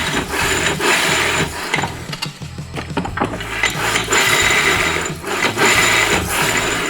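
Metal-on-metal scraping and rattling of 6L80 transmission internals being worked and turned down into the case, in long rough stretches full of small clicks.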